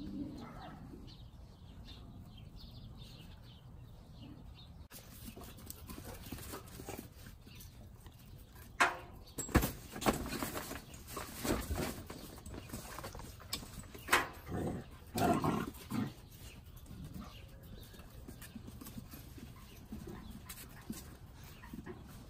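Great Dane puppies playing and scuffling, with a run of loud short sounds from about nine to sixteen seconds in.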